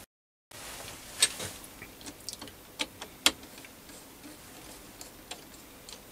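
Light metal clicks and taps as a brass plate is screwed down onto a steel lapping table with a screwdriver. The clicks are sharp and irregular, a handful of them louder than the rest, after a short silent gap at the start.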